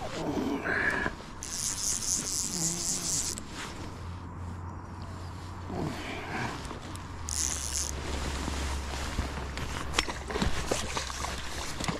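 Fly reel's ratchet buzzing as line runs on or off the spool while a hooked trout is played. There is one burst of about two seconds near the start and a short one about seven seconds in.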